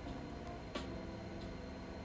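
Faint background music: soft held notes that change pitch, with a light tick about every two-thirds of a second.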